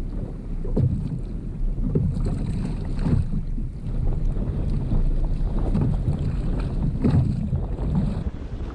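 Wind buffeting the microphone on a kayak at sea, a low rumble that surges in irregular gusts, with water sloshing against the hull.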